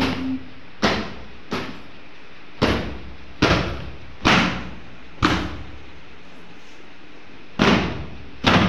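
A series of about nine loud, irregularly spaced knocks and thuds, each dying away quickly, from luggage and household goods being handled and set down.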